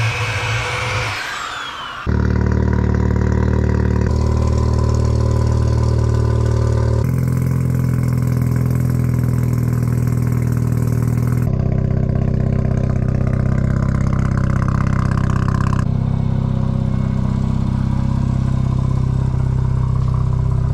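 A corded electric drill bores through a spot weld on car sheet metal, its whine falling away about two seconds in. After that a car engine idles steadily, apparently the Mazda RX-7 (FD), across several spliced clips with small shifts in its sound.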